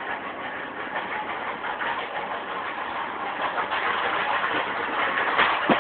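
Steady mechanical running noise that grows a little louder toward the end, with a sharp knock just before the end.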